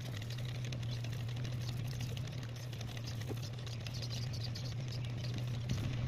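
Small plastic and metal parts of a microwave turntable gear motor being handled and washed in a tub of lacquer thinner: faint, quick, irregular clicking and rustling, over a steady low hum.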